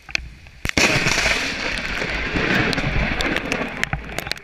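A sudden rush of water spray hitting the camera and microphone, starting with a sharp click about a second in and running as a loud, crackling hiss for about three seconds before fading.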